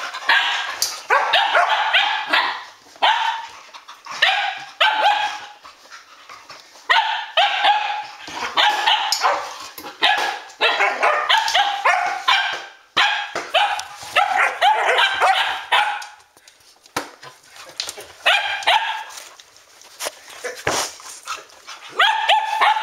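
Standard poodles play-barking and yipping while they wrestle, in repeated rapid bursts of barks with short pauses between.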